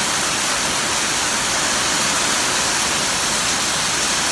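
Heavy downpour of rain mixed with small hail, falling in a loud, steady hiss.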